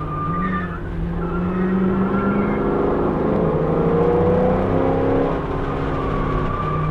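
2014 Camaro 1LE's 6.2-litre V8 heard from inside the cabin, accelerating hard on track. Its pitch climbs and drops sharply twice, about three and five seconds in, as it shifts through the gears.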